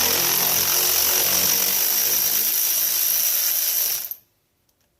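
Power drill running steadily, backing out a 10 mm fastener. It stops suddenly about four seconds in.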